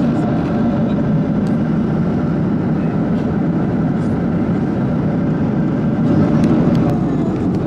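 Steady cabin roar of a Boeing 737-800 in cruise, heard from a window seat over the wing: the drone of its CFM56 turbofan engines and the rush of air past the fuselage.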